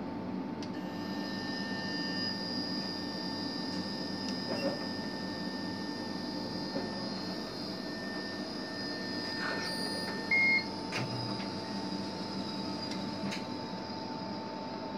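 GE Senographe Essential digital mammography unit running: a steady electrical hum with high, steady whining tones that start about a second in, a few faint clicks of its control-panel buttons, and one short beep about ten seconds in.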